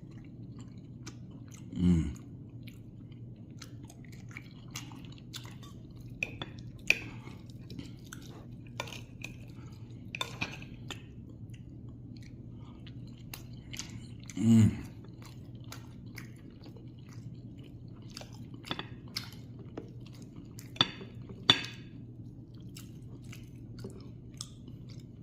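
Close-up chewing and crunching of food, with many short wet mouth clicks, over a steady low hum. A brief voice sound comes twice, and two sharper clicks come near the end.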